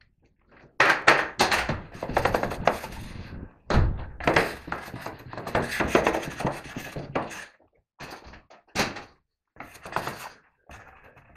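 A plastic wallpaper smoother rasping in strokes across freshly glued fibreglass canvas, spreading the canvas flat into the wet adhesive. A long run of scraping passes has a dull knock about four seconds in, and three short separate strokes follow near the end.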